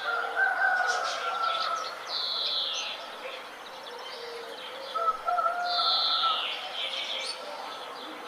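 Several birds calling and chirping together in a morning chorus, with two drawn-out calls that slide down in pitch and a lower held call twice.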